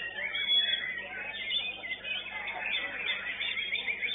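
White-rumped shama (murai batu) singing: a fast, varied run of whistled and chattering phrases, with a quick series of short repeated notes near the end.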